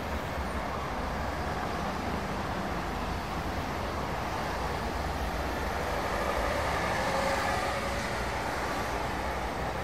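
Heavy city-street traffic with trams: a steady rumble of engines and tyres, with a faint tone swelling and fading again about seven seconds in.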